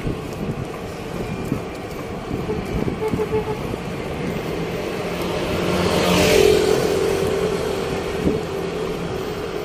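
City street traffic, with a motor vehicle passing close about six seconds in, its engine swelling and then fading.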